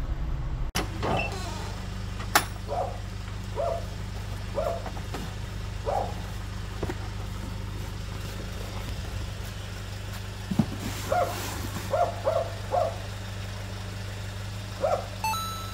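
Delivery truck engine idling with a steady low hum. A sharp knock comes about two seconds in, and short high squeaks sound at irregular intervals, bunched together in the second half.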